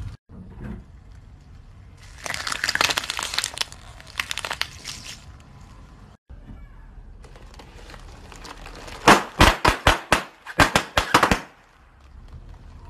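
A car tyre rolls over a pile of plastic googly eyes, crunching and crackling them for about three seconds. After a cut, it rolls onto inflatable air-column packing, and the air cells burst in two quick runs of sharp pops.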